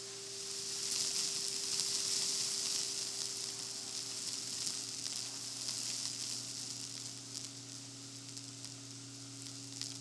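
Chameleon retractable-hose central vacuum heard through a microphone attached to the hose: a steady rushing hiss of air with a low hum under it. Small bits of debris tick and patter as they are sucked up off a hardwood floor, thickest in the first few seconds and thinning out later. Overall it is pretty quiet.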